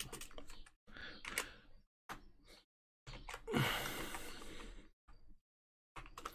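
Computer keyboard typing in short bursts of keystrokes, with a longer breathy noise about halfway through.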